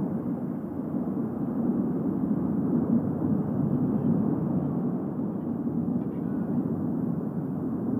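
The erupting La Palma volcano rumbling: a steady, low, continuous rumble with no distinct blasts.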